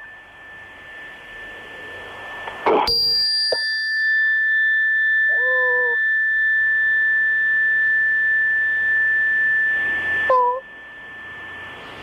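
A metal ritual chime is struck once about three seconds in and rings on with a clear, steady high tone for about seven seconds, then cuts off.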